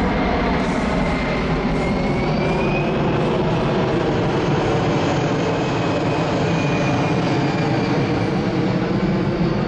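C-17 Globemaster III's four Pratt & Whitney F117 turbofans, loud and steady jet engine noise as the transport flies a low pass, with a faint high turbine whine above the rumble that rises slightly about two to three seconds in.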